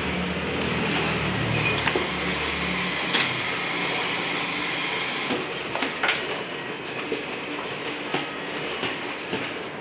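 Steady mechanical running noise with irregular clicks and knocks; a low hum fades out about three seconds in.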